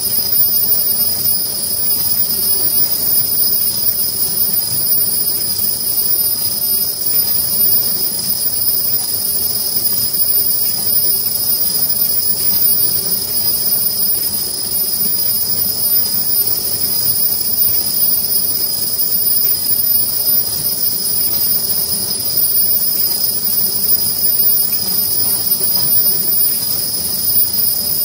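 Richpeace automatic sleeve-making machine running steadily: a constant high-pitched whine over an even mechanical hum.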